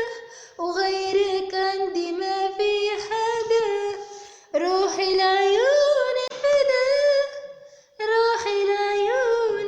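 A woman singing unaccompanied in Arabic: three melodic phrases with short breaks between them, the middle phrase climbing in pitch.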